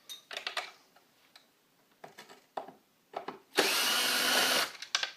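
Skateboard truck nuts being worked loose with a flat metal multi-tool: short scrapes and clicks of metal on metal, then a loud rasping noise for about a second near the end.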